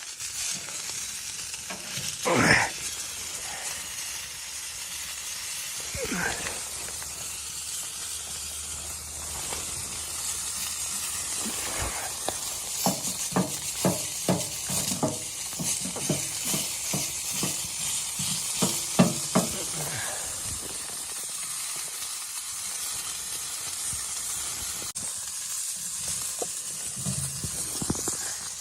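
Food sizzling in a pan with a steady hiss, stirred with a utensil that knocks against the pan in a quick run of taps about midway.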